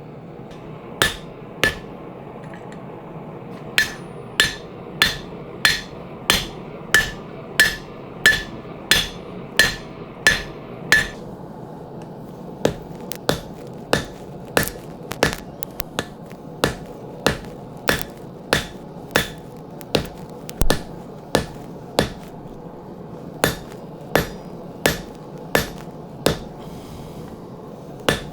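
Blacksmith's hand hammer striking hot steel on an anvil in steady runs of blows, about one and a half to two a second, with short pauses between runs; the blows ring more brightly in the first long run. A steady rushing noise runs beneath.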